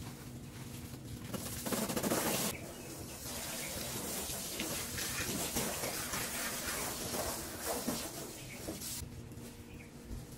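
Garden hose spraying water onto a car, a loud gush about two seconds in and then a lighter spray that stops about nine seconds in.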